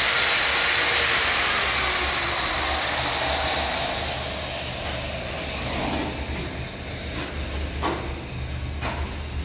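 Steady mechanical noise that fades away over the first four seconds. After that come several short scrapes of a steel notched trowel combing cement tile adhesive on the floor.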